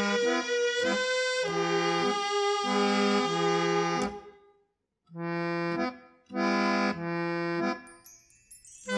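Instrumental dance tune with a reedy lead melody. It breaks off a little after four seconds, goes quiet for a moment, plays two long held chords, then starts up again near the end.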